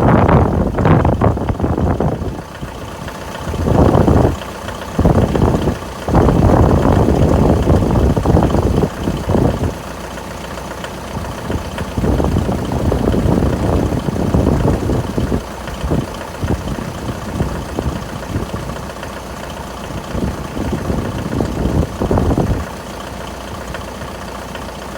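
Mitsubishi L200's 4D56 four-cylinder turbodiesel running from cold with the knock it makes when cold. Louder stretches come and go several times over the steady running.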